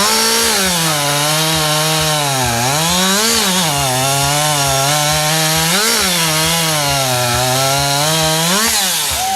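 Chainsaw running at full throttle through three long cuts. Its pitch sags under load during each cut and briefly revs up between cuts and at the end.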